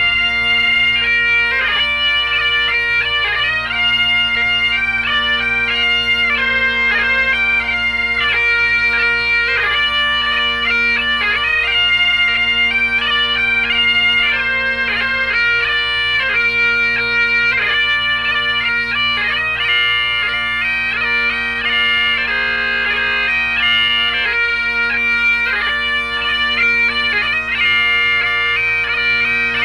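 Great Highland bagpipes playing a tune of quick, changing notes over their steady, unbroken drones.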